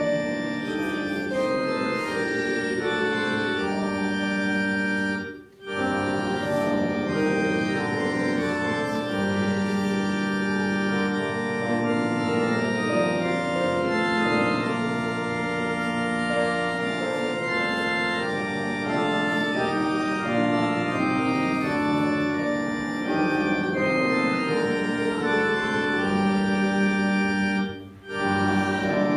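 Church organ playing a hymn in sustained chords, with two short breaks between phrases, about five seconds in and again near the end.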